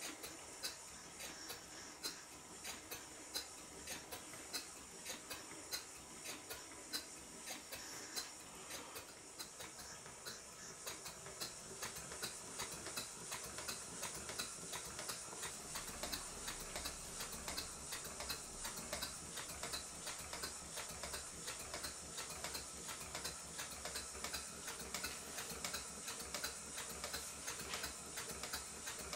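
Stuart Twin Victoria model twin-cylinder mill engine running on compressed air: fast, regular ticking of its exhaust beats and valve gear over a steady faint hiss.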